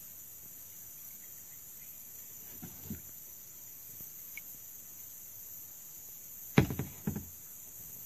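Steady high-pitched insect buzzing, with a few faint knocks about three seconds in and two sharp thumps, half a second apart, near the end.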